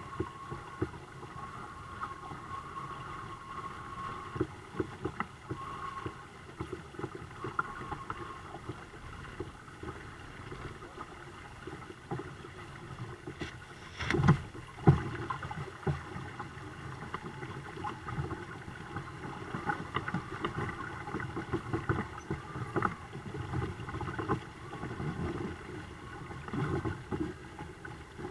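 Water lapping and splashing against the twin kayak hulls of a home-built sailing catamaran under way, in a broken, irregular patter. About halfway through come two louder thumps.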